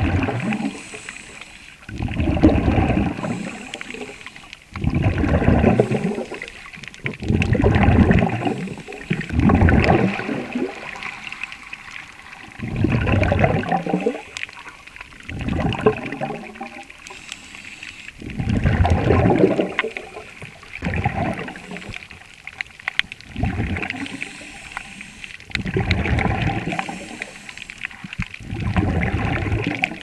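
Underwater bubble noise from a diver's breathing: about a dozen gurgling bursts of exhaled bubbles, one every two to three seconds, heard through an underwater microphone.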